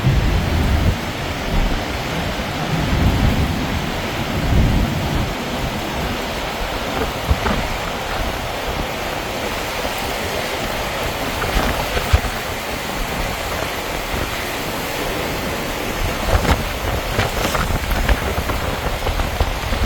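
Rain and storm wind noise, with heavy low rumbling gusts in the first few seconds and a few sharp ticks later on.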